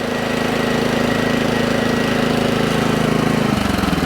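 Small gasoline engine of a hot-water pressure washer running steadily. About three and a half seconds in, its note changes to a rougher, rapidly pulsing sound.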